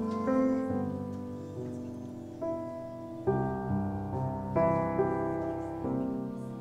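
Slow, quiet piano music: chords struck about once a second, each fading away before the next.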